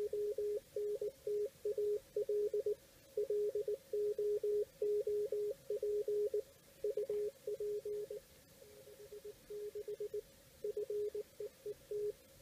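Morse code from an on-air station, received on an Elecraft KX1 transceiver with its filter narrowed and played through a homemade tuned (resonant) PVC-pipe CW speaker: a single clear tone keyed on and off in dits and dahs. The signal turns weaker and choppier for a couple of seconds around the middle.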